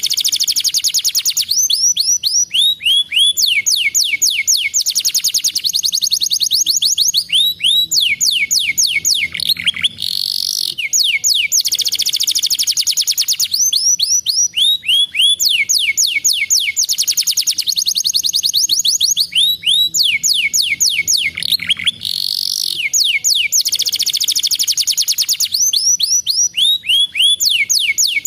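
Domestic canary singing a continuous song of fast trills and repeated down-sweeping notes, the same stretch of song repeating about every 11 seconds.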